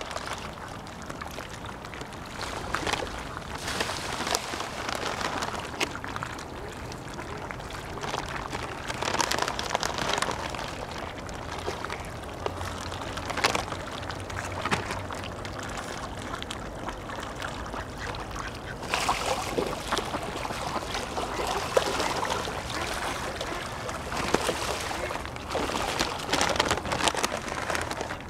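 Mallard ducks splashing and paddling in shallow water in uneven bursts, with occasional quacks.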